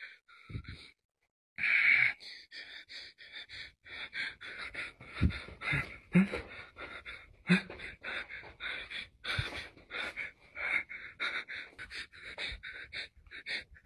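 A man's quick, heavy breathing close to the microphone, starting about a second and a half in: short noisy breaths a couple of times a second, with a few sharper gasps among them.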